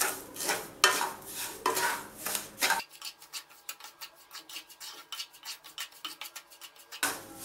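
Wooden spatula scraping and stirring semolina as it roasts in ghee in a kadai, in repeated strokes about three a second; for a few seconds in the middle the strokes come quicker and lighter, and the slower strokes return near the end.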